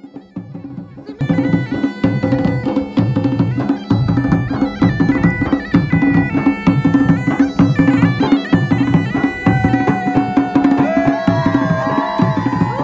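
Garhwali bagpipe (masakbaja) playing a folk dance tune over its steady drone, with a drum beating a regular rhythm. The music comes in loud about a second in.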